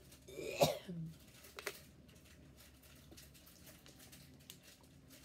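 Close-up eating sounds of a person eating stew with her fingers: a loud mouth noise about half a second in with a brief low hum after it, then a sharp click and faint scattered clicks of fingers and food.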